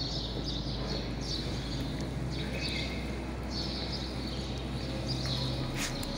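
Pressure washer at work on a tiled floor: a steady hiss of water with a low machine hum that comes in about two seconds in and stops near the end. Short high-pitched sounds repeat roughly once a second over it.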